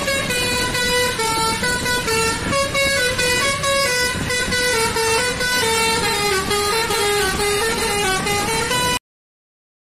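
Indonesian tour bus's musical air horn (a 'telolet' horn) playing a quick tune of stepped notes. It cuts off suddenly near the end.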